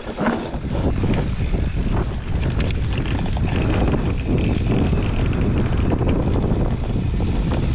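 Wind buffeting the microphone while an enduro mountain bike descends a rough trail. Tyres run over dirt and rock under a steady rush, with many small knocks and rattles from the bike.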